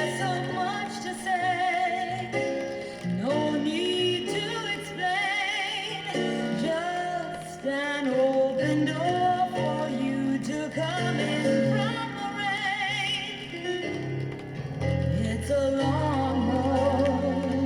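A song playing from a 33 rpm vinyl record: a woman singing a slow melody with vibrato over guitar accompaniment.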